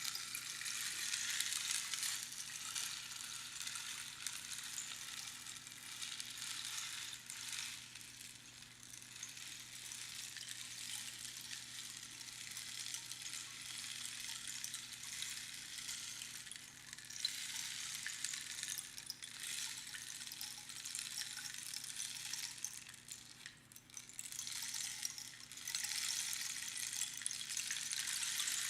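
Rainstick pebbles trickling down past the pins inside the tube, a rain-like patter that swells and fades in waves as the stick is turned, with a brief lull a few seconds before the end.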